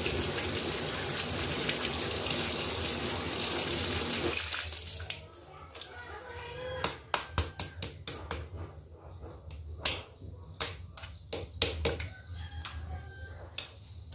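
Tap water running steadily onto a mud crab as it is scrubbed, cutting off about four and a half seconds in. After that come sharp, irregular clicks and knocks as the crab's hard shell is handled and scrubbed in a pan.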